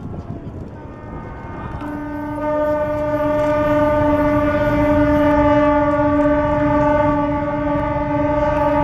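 Low rumble and wash as the hull of a very large LPG carrier slides down the launch way into the water. About two seconds in, a ship's horn starts one long, steady blast that holds on.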